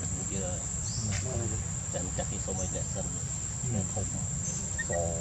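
Steady, high-pitched insect drone over a low background rumble, with faint intermittent voices in the distance.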